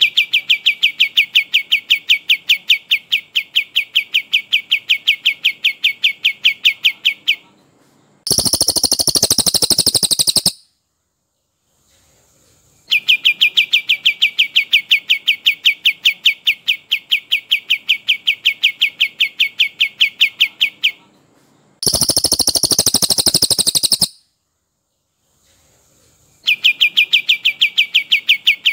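Recorded songbird masteran of a cililin and a kapas tembak. Long rolling trills of fast repeated notes, about seven a second and lasting around seven seconds each, alternate with shorter, harsher, higher rattling bursts of about two seconds, with brief pauses between phrases.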